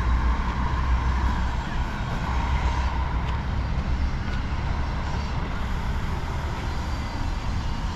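City street traffic: steady road noise from passing cars and buses, with a low rumble that eases off after the first couple of seconds.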